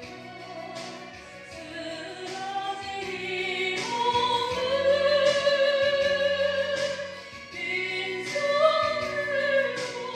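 A woman singing a praise song solo into a handheld microphone over a steady instrumental backing. She holds long, swelling notes that are loudest in the middle and again near the end.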